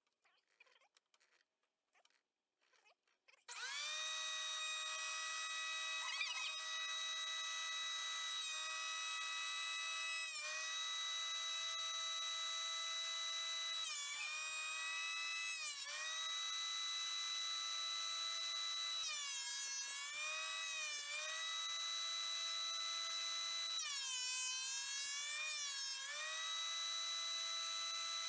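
Performax 15-amp benchtop thickness planer switching on about three seconds in and running with a steady high motor whine. The pitch dips briefly several times as the motor comes under load while a wide board is fed through the cutterhead.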